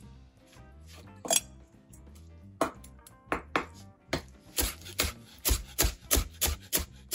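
Chef's knife chopping red bell pepper strips on a plastic cutting board. A few scattered knife strikes come first, then from about four seconds in a steady run of taps, roughly three a second.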